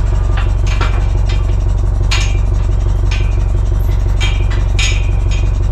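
Volare A8 motorhome's diesel engine idling with a steady low rumble, heard from inside the cab, with about ten short, irregular clinks and scrapes over it.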